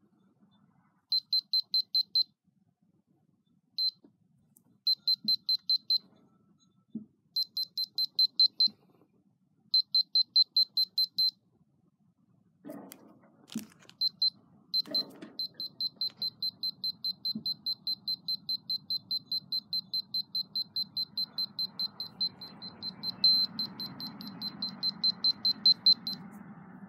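Sanwa KDP10 live-wire sensor on cutting pliers beeping rapidly, a high electronic beep about five times a second, in short bursts that stop and start as the jaws move near a power cord, then beeping without a break for about ten seconds. The beeping signals that the cord is live. A few handling knocks come about halfway through.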